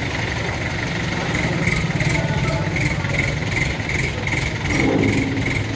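Heavy vehicle engine idling steadily, with a high chirp repeating about two to three times a second from about a second and a half in, and a brief louder rise in the engine sound near the end.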